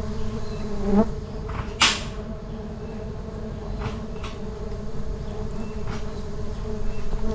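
Steady buzzing of many bees from a wild colony whose nest has been broken open, with a sharp knock about two seconds in and a few fainter clicks.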